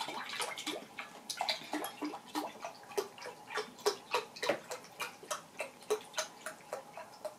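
Vegetable broth pouring from a carton's spout into a glass measuring cup, glugging in quick uneven pulses, about three or four a second.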